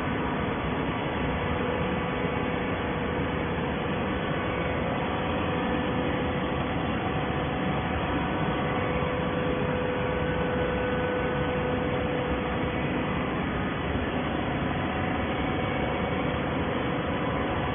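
Plastic-bottle baling machine running: a steady mechanical noise with a constant hum.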